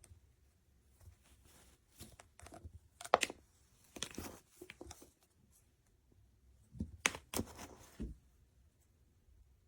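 Irregular handling sounds: scattered short rustles and knocks in a few clusters, with quiet stretches between.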